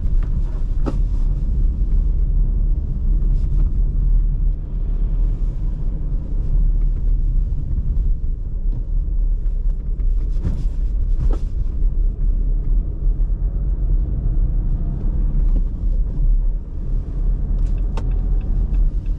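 Steady low rumble of a car driving, engine and road noise. A few sharp knocks cut through it, about a second in, twice close together about ten seconds in, and once near the end.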